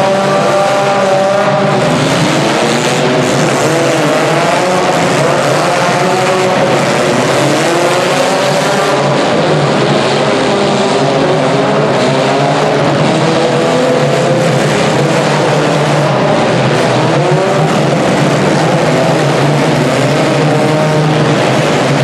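Engines of many compact demolition-derby cars revving hard together inside an arena. Their pitches rise and fall over one another in a loud, unbroken din.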